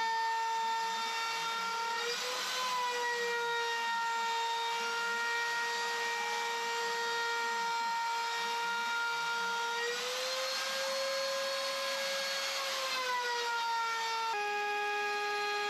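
Katsu trim router spinning at speed on a CNC machine while milling wood: a steady high-pitched whine, dipping briefly in pitch about two seconds in. From about ten seconds the pitch rises and cutting noise swells for a few seconds. Near the end the sound switches suddenly to a different, lower set of tones from the Mafell FM 1000 milling motor.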